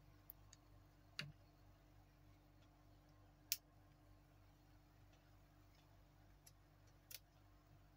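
Near silence broken by four faint, short clicks from handling the UV flashlight and the watch on the wrist, one with a soft knock about a second in and the sharpest about three and a half seconds in.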